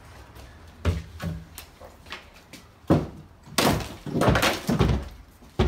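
Demolition work: a few heavy knocks, then a burst of crashing and clattering like debris being smashed and thrown, and another hard bang near the end.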